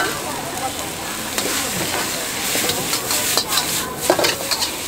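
Noodles sizzling in a hot wok while a metal wok spatula stirs and scrapes through them, with a quick run of sharp clanks of the spatula against the wok about three to four and a half seconds in.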